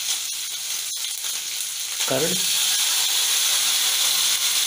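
Capsicum, onion and ginger garlic paste sizzling in hot oil in a kadai, a steady hiss with one sharp click about a second in. About two seconds in, curd is poured into the hot pan and the sizzling gets louder.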